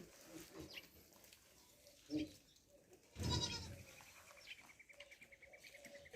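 Goat bleating, with one louder bleat a little past the middle.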